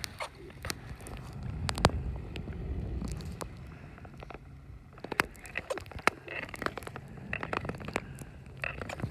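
Nordic long-distance skates striding on clear lake ice: the blades scrape and tick with many sharp clicks over a low gliding rumble. The rumble swells for a couple of seconds early on, with the loudest click about two seconds in.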